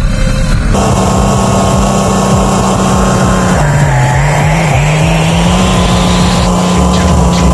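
Axial SCX10 RC crawler's electric motor and geared drivetrain whining as it drives, heard from a camera mounted in the cab. A whine climbs steadily in pitch over about five seconds as the truck speeds up, with a brief dip about four seconds in.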